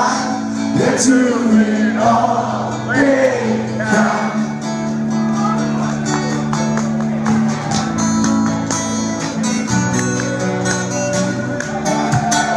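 A man singing live over strummed acoustic guitar chords. The singing stops about four seconds in, and the guitar carries on mostly alone.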